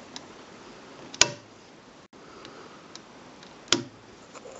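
Turn-knob switch on a lamp bulb holder clicking twice, about two and a half seconds apart, switching the lamp.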